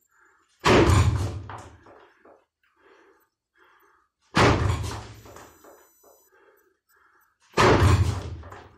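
Three kizami zuki punches landing on a makiwara, a wooden striking post, about three and a half seconds apart: each a heavy thunk that dies away over about a second.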